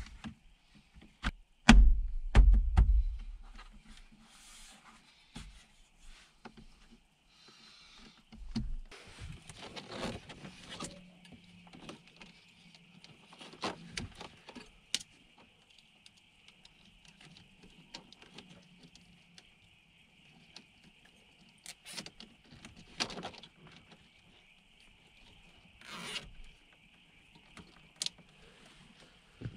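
Hands working behind the plastic dash panels of a Toyota 70 series LandCruiser, handling the reverse-camera wiring: scattered clicks, knocks and rubbing, with a burst of heavy thumps about two seconds in.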